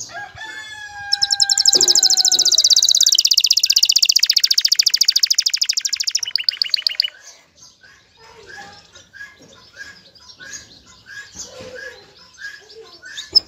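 Domestic canary courtship song. It opens with a few clear whistled notes, then a loud, very rapid high trill of about five seconds that drops in pitch partway through. Softer short chirps follow, repeated about twice a second.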